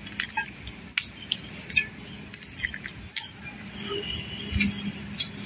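Crickets trilling in a steady, high-pitched chorus that does not break, with a few light clicks and taps now and then.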